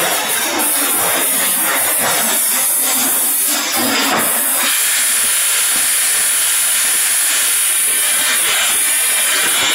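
Automatic rotary polishing machine for stainless steel mugs and teapots running, its buffing wheel turning: a loud, steady hissing machine noise that turns steadier and brighter about four and a half seconds in.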